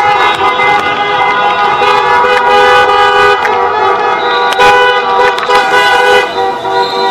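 Many car horns honking at once, held and overlapping, from a line of cars driving past: celebratory honking after a football victory.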